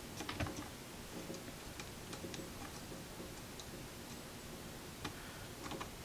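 Faint, irregular light clicks and ticks of small tools against a vintage radio chassis during desoldering work, over a low steady hum.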